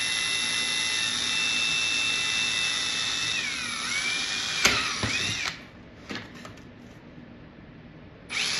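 Cordless drill boring a hole through a sheet of plexiglass: a steady whine that sags in pitch as the bit bites, a sharp click about four and a half seconds in, then the drill stops. It starts again near the end.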